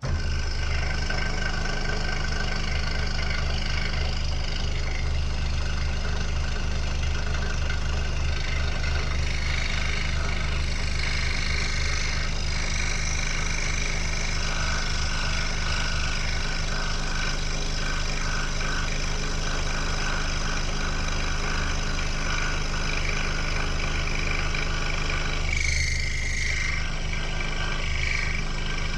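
Scroll saw running steadily, its motor hum and fast reciprocating blade strokes keeping an even pitch, with a brief change in tone near the end.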